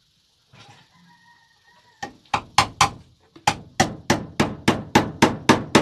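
Hammer driving a nail into wood: a run of sharp, even strikes, about three a second, starting about two seconds in, with a short pause after the first four.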